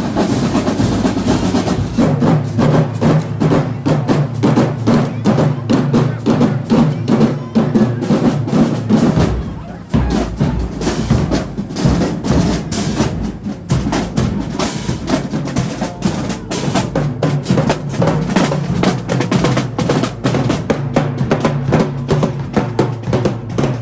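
Marching band drumline playing a fast, busy cadence of rapid drum strikes; the deeper drums come in more strongly about ten seconds in.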